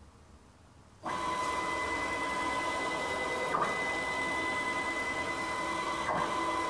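A 4 Nm stepper motor on a CWD556 digital driver starts about a second in and runs with a steady, high-pitched whine, driving the Z-axis screw to move a 50 kg load at 3000 mm per minute. The note briefly breaks twice, about halfway and near the end, as the carriage reverses direction.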